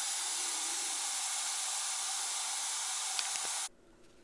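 Steady hiss from a scratch-built 0-8-4 live-steam locomotive being fired by a ceramic gas burner, with a faint tick a little over three seconds in. The hiss cuts off suddenly near the end, leaving near silence. The burner is not putting enough heat into the boiler to hold 20 psi.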